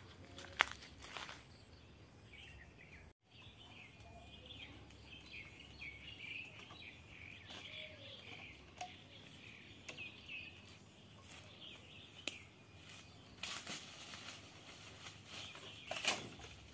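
Small birds chirping and twittering, with a few sharp knocks and clatters from the timber frame of an old chicken coop being handled. The loudest knock comes near the end.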